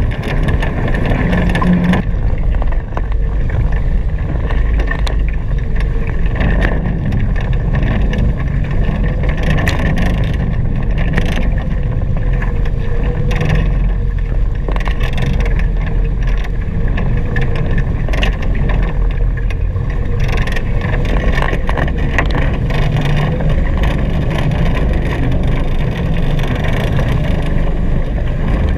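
Wind buffeting the microphone and water rushing past the hulls of a Hobie Cat 16 catamaran sailing fast, a loud steady rush with short sharper hits now and then.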